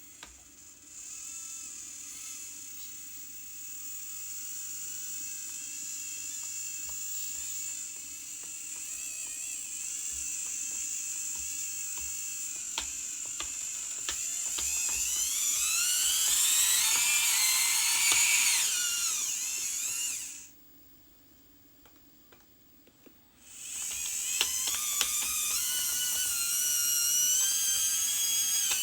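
Electric motors and gearboxes of radio-controlled construction models whining, the pitch rising and falling as the throttle changes. The whine stops for about three seconds two-thirds of the way through, then starts again.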